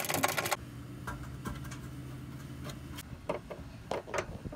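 Socket ratchet clicking rapidly as it spins a fuel-tank strap bolt in, stopping about half a second in. After that come a few separate, slower clicks over a faint steady low hum.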